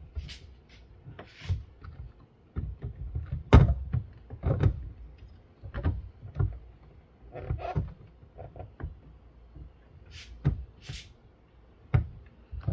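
Irregular knocks, clicks and a few short scrapes of a Mercedes-Benz E350 taillight assembly being pushed and lined up by hand in its opening in the car's rear body. The loudest knock comes about three and a half seconds in.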